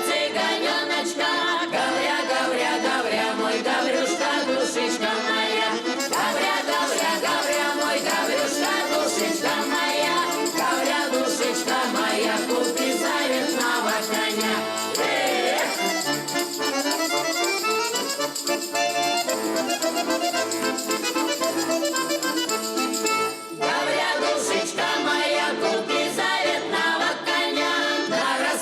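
Russian folk song performed by a vocal ensemble singing to accordion accompaniment.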